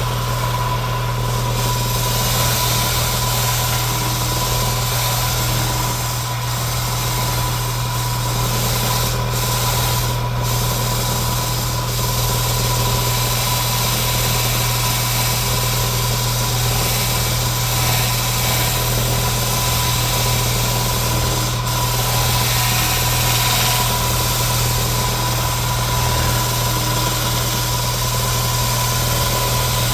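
Electric power sander running steadily on the template, a constant low hum with a thin steady whine above it.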